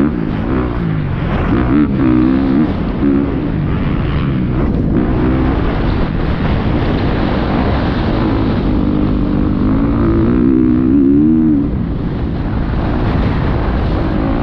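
Motocross bike engine under the rider, revs rising and falling again and again as the throttle is worked through corners and bumps, with wind buffeting the microphone. The revs ease off a little about twelve seconds in.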